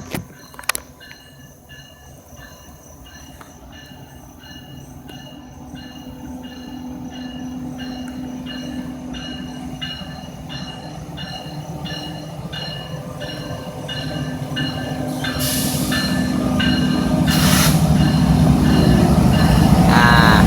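Freight train with diesel locomotives approaching, its low rumble growing steadily louder, with steel wheels squealing near the end. A faint regular ringing beat, about twice a second, runs under it.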